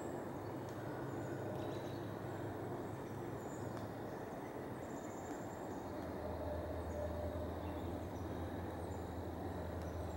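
Steady outdoor ambience: a low hum of distant city traffic that drops in pitch about six seconds in, under a steady wash of noise, with faint, scattered bird chirps.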